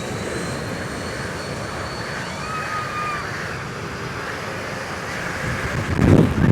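Engines of a small airliner on its landing approach passing low overhead: a steady roar with a high thin whine, swelling much louder near the end.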